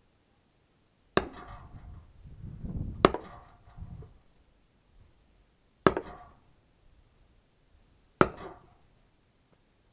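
Axe splitting kindling on a wooden chopping block: four sharp chops a couple of seconds apart, each with a short ringing tail.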